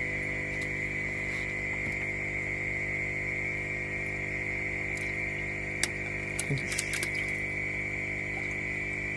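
A steady high-pitched drone over a low hum, with a few light clicks and knocks between about six and seven seconds in as a hand handles crayfish in a plastic bucket.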